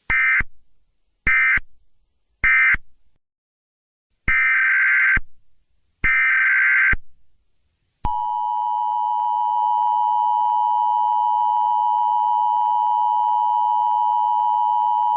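Emergency Alert System tones. Three short, screechy data bursts about a second apart, then two longer bursts, then from about eight seconds in the steady, harsh two-tone attention signal.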